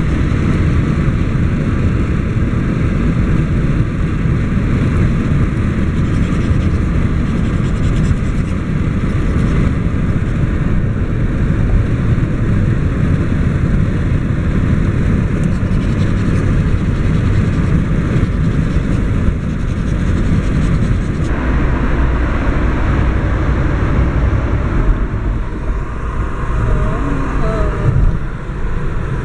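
Steady rumble of a moving car heard from inside the cabin, the road and driving noise changing character about 21 seconds in.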